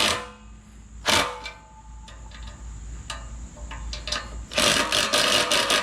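Hand tools working the mounting bolts of a steel rear bumper: a short metallic scrape and clank about a second in, then a run of rapid ratcheting clicks near the end.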